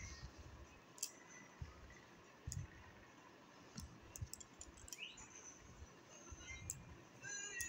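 Faint scattered clicks and a few soft low taps as hands work white paint onto a board.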